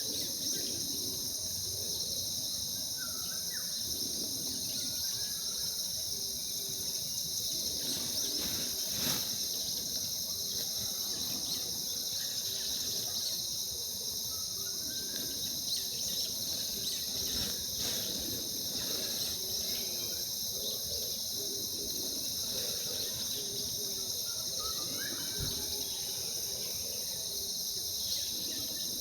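Steady, unbroken high-pitched chorus of summer insects, with a few faint, short bird calls scattered through it.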